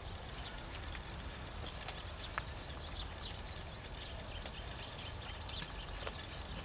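Outdoor rural background: a steady low rumble with many short, scattered chirps and clicks.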